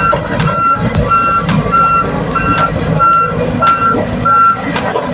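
Volvo crawler excavator's travel alarm beeping steadily, about one and a half beeps a second, as the machine tracks in reverse, over its diesel engine running. Frequent sharp clicks sound throughout. The beeping stops about four and a half seconds in.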